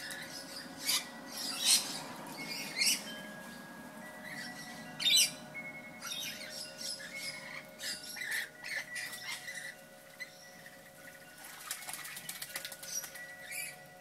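Lorikeets screeching and chattering, with several loud, harsh shrieks in the first five seconds and quicker, softer chatter after.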